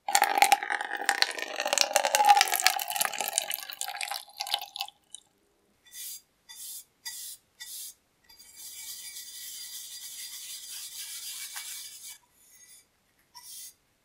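Cold bluing liquid poured from a bottle into a plastic cup, splashing and gurgling for about five seconds. Then a bristle brush scrubs the solution onto a sandblasted cast-iron iron body, first in a few short strokes and then in a longer steady scrub.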